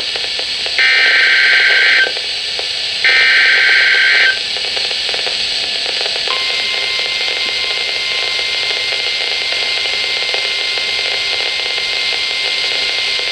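NOAA Weather Radio emergency alert: two short screechy warbling bursts of SAME digital header data about a second apart, then from about six seconds in the long steady warning alarm tone, over radio hiss. It signals the start of a warning broadcast, here a snow squall warning.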